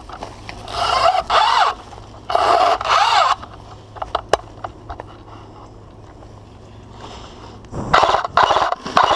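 Footsteps and rustling through woodland undergrowth as a player runs, with a few sharp clicks about four seconds in and louder bursts of noise near the end.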